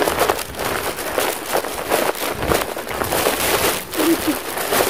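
Footsteps and rustling of people walking along a dirt path, with the handheld camera jostling.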